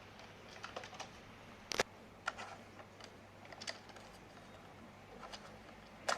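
Scattered light clicks and knocks of small plastic parts being handled, one louder knock near the start, as a stuck wheel-motor module is worked loose from a robot vacuum cleaner.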